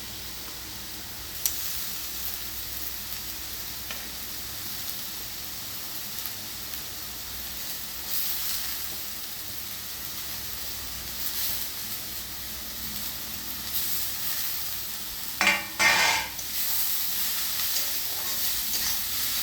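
Chopped onion and red and green capsicum sizzling in hot oil in a kadai while being stirred with a spatula. A steady frying hiss, with a few louder scrapes of the spatula about three-quarters of the way through.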